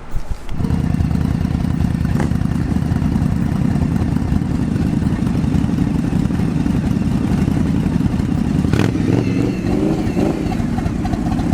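V-twin motorcycle engine catching about half a second in, then idling steadily.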